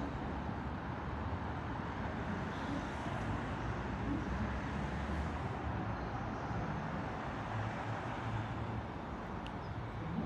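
Steady outdoor road-traffic rumble with no distinct events.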